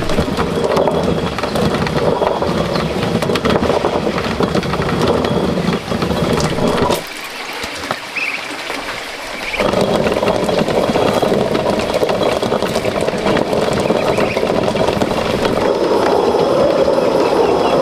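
Hand-turned stone quern grinding dried corn: a steady, rough grinding of stone on stone over crushing kernels. It stops for about two and a half seconds about seven seconds in, then starts again.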